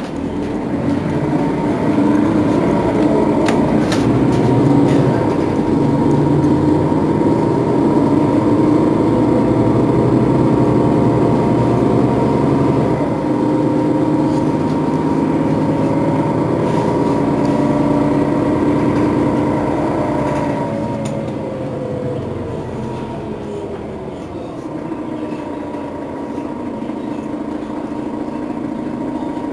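Setra S415NF city bus standing with its diesel engine running, louder from about a second in. A whine wavers in pitch and falls away about twenty seconds in as the engine sound eases.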